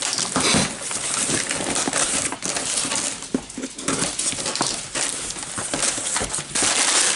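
Cardboard box and packing material being handled and pulled open by hand: continuous rustling and crinkling with scattered small knocks.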